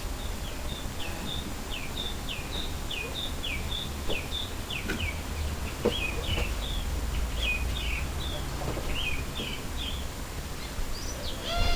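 A small bird singing, a string of short high chirps that each slide downward, about two a second, over a steady low rumble of outdoor background noise.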